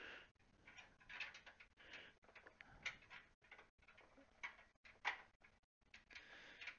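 Faint metallic clicks and scraping as PCIe slot covers are fitted back into a PC case's rear expansion slots, with a few louder knocks around three and five seconds in.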